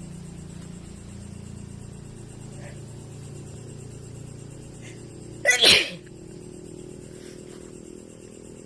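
A single sneeze about five and a half seconds in, short and sharp, over a steady low hum.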